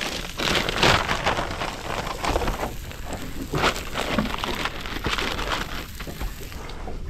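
A plastic packet of tortilla wraps crinkling and rustling in irregular bursts as it is handled open and a wrap is pulled out and laid flat. Underneath is a steady crackle of fish fillets sizzling on a portable gas grill.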